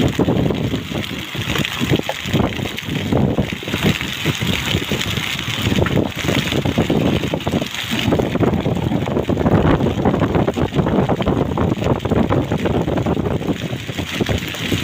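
Hailstorm: hail and heavy rain pelting down in a dense, unbroken patter of small impacts, with wind buffeting the microphone.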